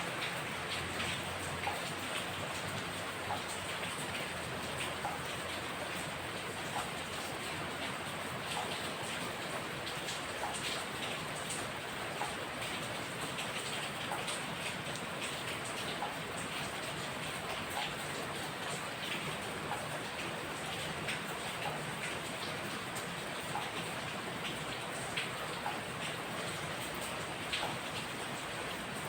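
Steady rain falling, with many scattered louder drops tapping close by.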